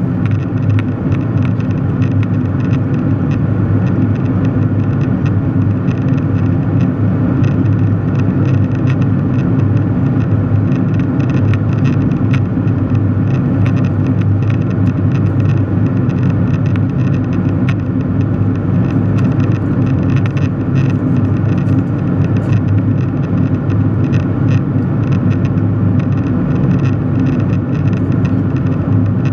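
Steady drone of an airliner cabin in cruise flight: jet engine and airflow noise heard from a window seat, low and constant.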